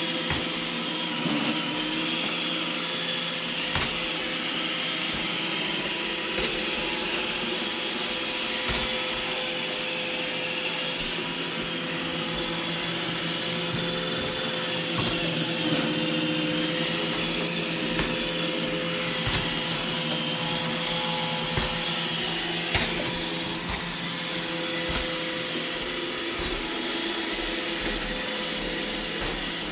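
iRobot Roomba E6 robot vacuum cleaning: a steady motor hum with a high whine, with occasional light clicks and knocks.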